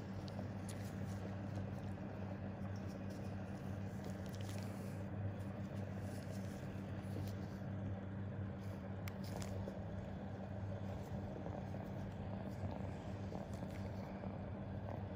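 Steady low electrical hum over even background room noise, with a few faint soft clicks.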